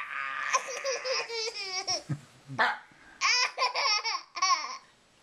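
A young child laughing in repeated high-pitched bursts, with a brief lower voice sound about two seconds in.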